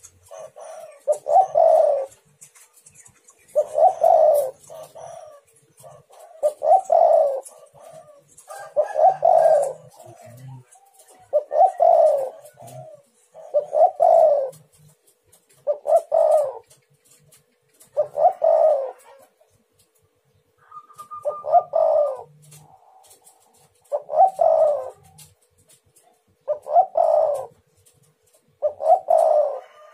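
Spotted dove (tekukur) cooing over and over, one phrase about every two and a half seconds.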